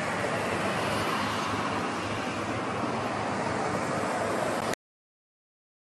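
Steady, even background noise of room ambience with no clear voices, cutting off abruptly into silence near the end.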